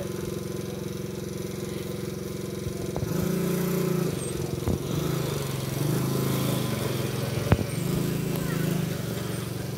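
Small gas engine of a youth four-wheeler (ATV) running, its pitch stepping up and down as the throttle is opened and eased off. A single sharp click sounds near the end.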